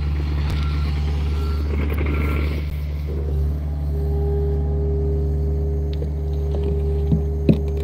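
John Deere compact excavator's diesel engine running steadily as the boom swings and lowers the bucket, with a steady whine joining from about four seconds in. A backup alarm beeps about twice a second during the first couple of seconds, and a few light knocks come near the end.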